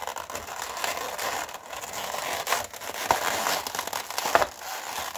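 Plastic packaging crinkling and crackling as it is unwrapped and handled, with a couple of sharper snaps.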